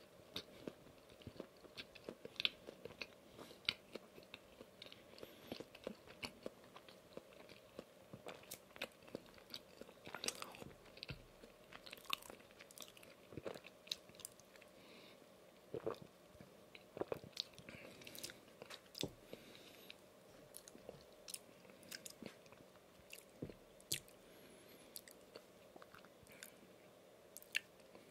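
Close-miked chewing of soft donut: many small wet smacks and clicks of the mouth, with sips from a glass of drink about halfway through.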